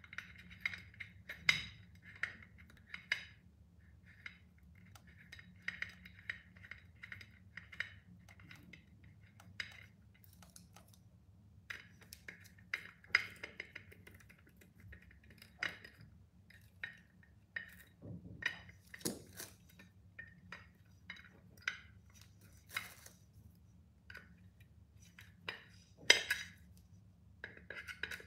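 Tempered glass pot lid and its metal fittings clinking and scraping as the lid knob is screwed on with the tip of a pair of scissors: irregular clicks, taps and short scrapes of metal on glass.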